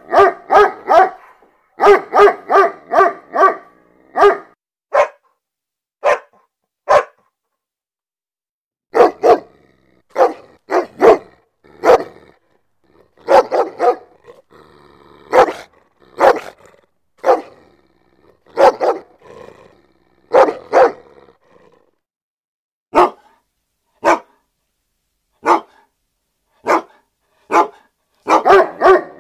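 Dogs barking, in rapid runs of about four barks a second and in single barks spaced a second or so apart, with a break of about two seconds a quarter of the way in.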